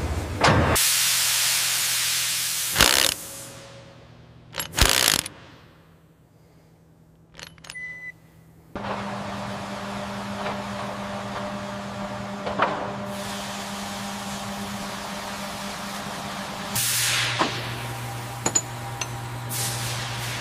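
Factory machinery sounds: a loud hiss that fades over a few seconds, a few sharp knocks, a brief quieter gap, then a steady machine hum with several held tones that drops to a lower hum near the end, with a short hiss as it changes.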